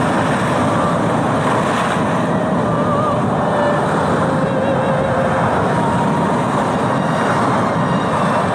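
Steady roar of storm surf and wind, with no pauses between waves, and faint wavering tones above it.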